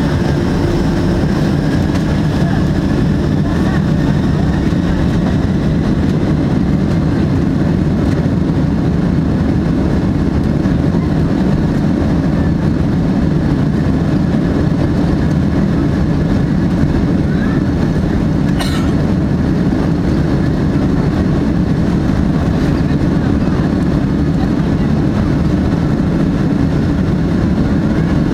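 Cabin noise inside a Boeing 767-300 taxiing on the ground: a steady, loud low rumble of the jet engines at taxi power and the airframe rolling over the pavement, heard through the window seat.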